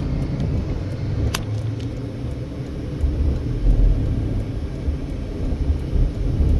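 Car road noise heard from inside the moving vehicle: a steady low rumble of tyres and engine. A single sharp click about a second and a half in.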